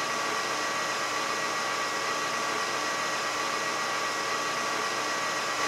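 Metal lathe running at a steady speed during peck drilling, with a twist drill in the tailstock chuck fed into the spinning workpiece. It makes a steady hiss with a thin, steady whine.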